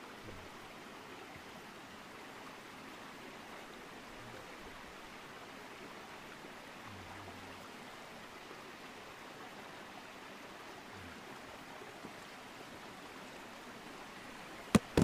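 Steady, even hiss of open outdoor air through a GoPro's microphone, with no distinct source. Near the end a single sharp click stands out, from handling of the camera.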